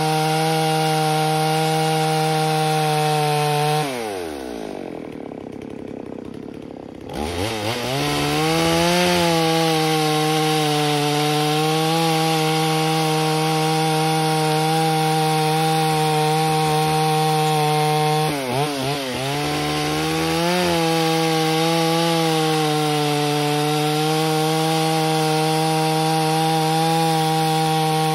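Stihl 038-clone two-stroke chainsaw running at full throttle while ripping lengthwise through dry, tough timber. About four seconds in the engine drops to idle for about three seconds, then revs back up into the cut, and it dips briefly once more later on.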